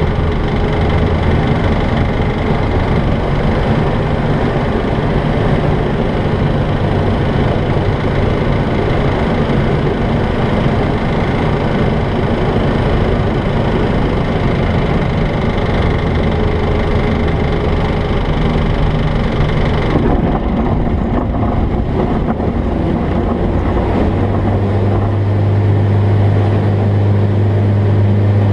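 Jabiru light aircraft's engine and propeller droning steadily, heard from inside the cockpit, through approach, touchdown and ground roll of a touch-and-go. The high hiss drops away about two-thirds in, and near the end a deep steady drone grows louder as power comes up for the take-off.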